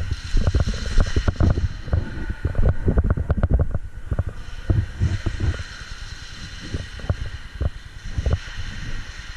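Irregular dull thumps and knocks, many in quick succession, thinning out after about five seconds over a faint steady rushing noise.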